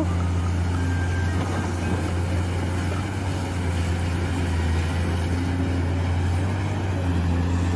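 Caterpillar 390D excavator's diesel engine running with a steady low drone while the machine works, loading a dump truck.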